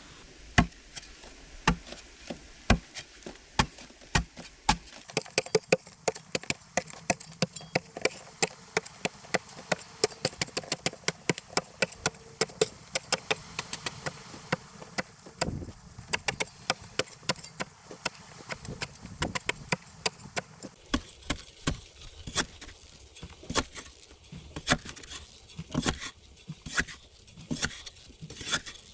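A long series of sharp chopping strikes from a hand tool on wood: a few hard blows about a second apart, then many quicker, lighter strokes, easing back to spaced blows near the end.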